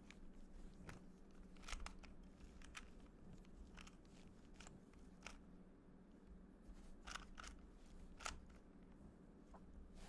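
A plastic 2x2 Rubik's cube being turned by hand through a move sequence: faint, irregular clicks of its layers rotating, some in quick pairs, over a steady low hum.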